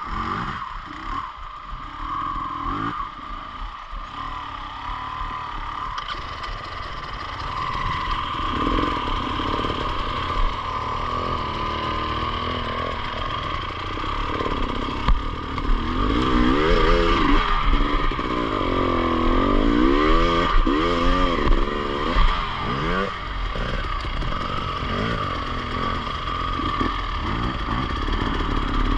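Enduro motorcycle engine being ridden, its revs rising and falling again and again, most busily about halfway through.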